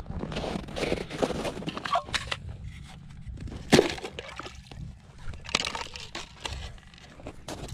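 Boots crunching through snow, then a single sharp knock near the middle as an orange plastic ice-fishing tip-up is picked up and handled. After it come scattered soft clicks and rustles while fishing line is pulled up by hand from the ice hole.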